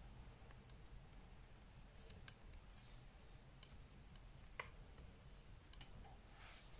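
Faint, irregular clicks of 5 mm Knit Pro knitting needles tapping together while stitches are bound off, over a low room hum.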